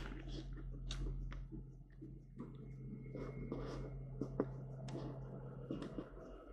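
Faint rustling and small clicks of fingers handling the branches and tinsel of an artificial Christmas tree and a glitter ornament, over a steady low hum that stops near the end.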